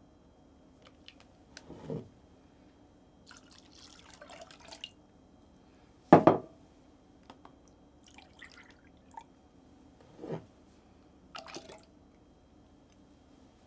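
Milk poured and splashing into a glass measuring cup and then into a glass mixing bowl, in a few short pours. Between them come several knocks as the containers are handled and set down on the wooden countertop, the loudest about six seconds in.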